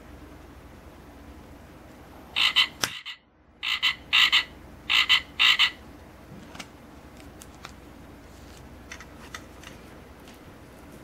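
Electronic frog-croak sound effect from a novelty frog-shaped butane lighter, played as a quick string of short, buzzy croaks over about three seconds, broken by a brief silent gap. A few faint clicks follow.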